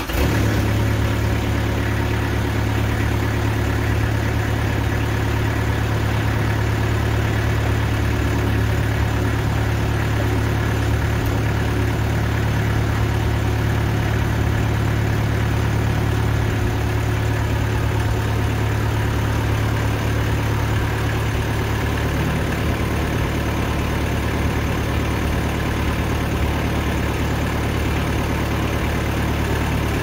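TimberKing band sawmill running at a steady speed, its engine hum and blade hiss starting abruptly at the very beginning and holding even throughout.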